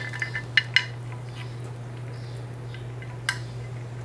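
Small metal engine parts and tools clinking as BMW N20 timing-chain components are fitted by hand: four quick clinks in the first second and one more about three seconds in, over a steady low hum.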